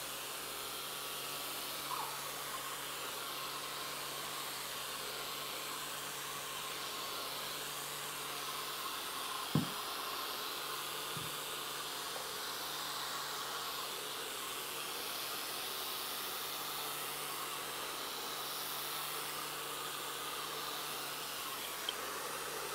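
Electric plant mister spraying continuously: a steady hiss of fine mist over a low, even hum. A single short knock about nine and a half seconds in.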